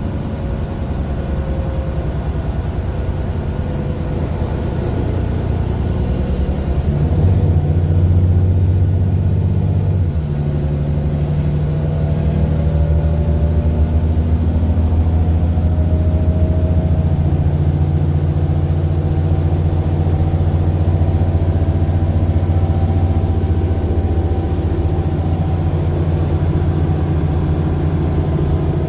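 Daimler OM 457 hLA diesel engine of a Mercedes-Benz Citaro LE city bus running under way. The engine pulls harder about seven seconds in, with a faint high whine climbing. Its note changes abruptly about ten seconds in, then it runs steadily.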